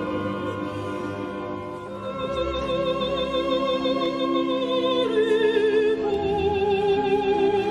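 Opera music: a singer holding long notes with wide vibrato over orchestral accompaniment, moving to new notes about two seconds in and again about five seconds in.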